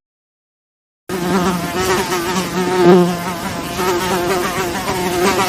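Flies buzzing: a steady, slightly wavering drone that cuts in suddenly about a second in, after a moment of silence.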